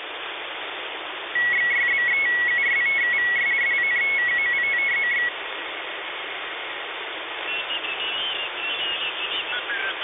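Shortwave receiver audio on the 11-metre band in upper sideband: steady radio hiss. From about a second and a half in to about five seconds in, a loud beeping tone near 2 kHz is keyed rapidly on and off, switching between two close pitches. Near the end, faint squeaky garbled sideband chatter comes through the hiss as the receiver is retuned.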